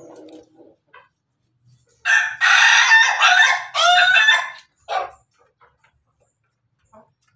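A rooster crows once, a loud call of about two and a half seconds with gliding pitch, starting about two seconds in. There is faint clucking at the start and a brief short call about five seconds in.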